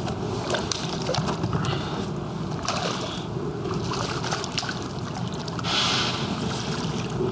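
Water sloshing and lapping, with many small knocks and clicks and a brief louder rush of splashing noise about six seconds in.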